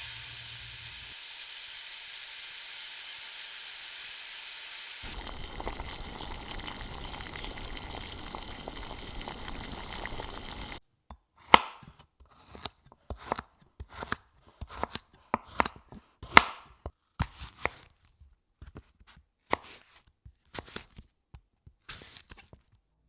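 Food sizzling in a hot pan, a steady hiss that turns to a crackling fry about five seconds in. From about eleven seconds, a knife chops on a cutting board in separate, uneven strokes.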